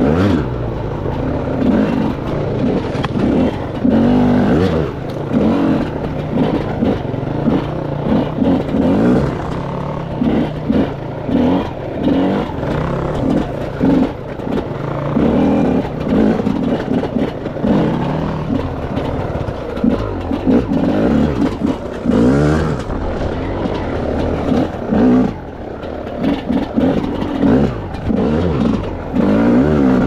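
Enduro dirt bike engine being ridden hard, its pitch climbing and dropping over and over as the throttle opens and closes.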